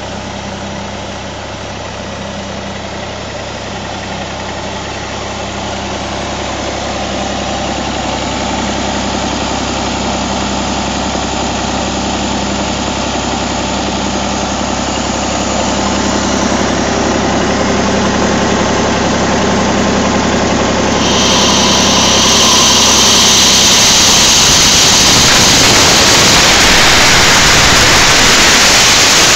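Broomwade diesel air compressor's Massey Ferguson 135 three-cylinder diesel engine idling steadily. About twenty seconds in, a loud rushing hiss starts suddenly and soon drowns out the engine.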